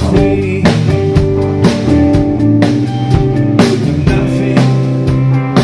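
Live band playing: electric guitar and bass notes over a drum kit keeping a steady beat.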